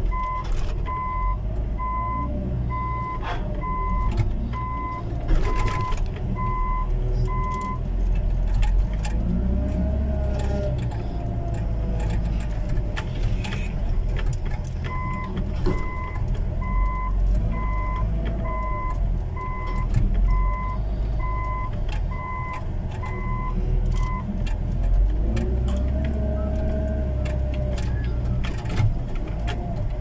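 Heavy earthmoving machine running, heard from inside its cab as a steady low engine rumble. A reversing alarm beeps at an even rate in two runs: for about eight seconds at the start, and again for about nine seconds in the second half.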